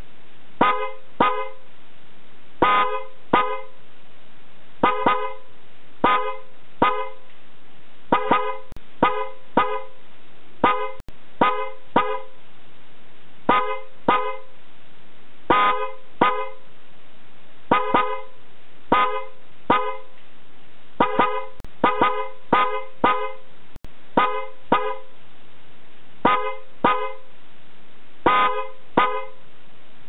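A pair of BOMEX snail-type electric car horns sounding in short honks, in quick groups of two or three repeated every second or two, over a steady hiss.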